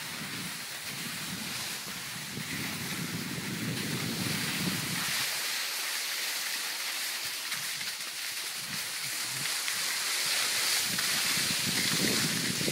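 Wind gusting across a phone's microphone, low buffeting that comes and goes over a steady hiss.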